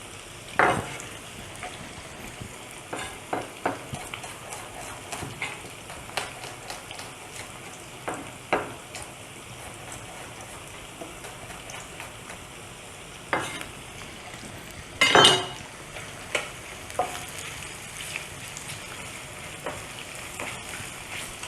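Whole spices frying with a steady sizzle in hot oil and clarified butter. Over it, irregular sharp knife taps on a cutting board as shallots are sliced, the loudest knock about fifteen seconds in.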